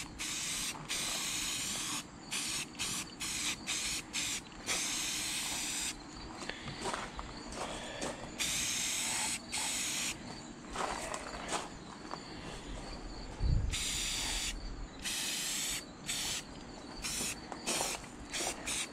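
Aerosol can of flat spray paint hissing as it is sprayed, in several bursts of a second or two with short pauses, then a run of short quick bursts later on. A low bump about two-thirds of the way in.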